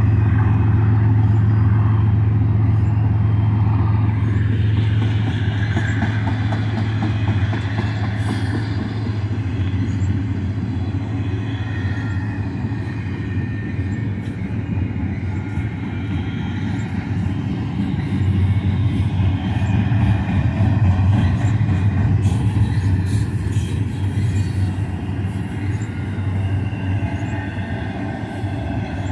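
Loaded double-stack container well cars of a BNSF freight train rolling past: a steady rumble of steel wheels on the rails.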